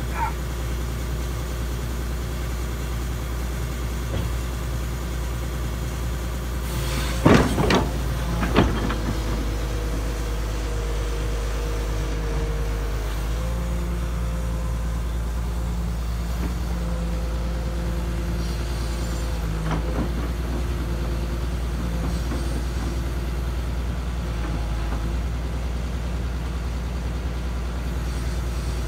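Link-Belt 3400 excavator's diesel engine running steadily. A few loud sharp knocks come about seven to nine seconds in, a fainter one near twenty seconds, and the engine's note shifts slightly about thirteen seconds in.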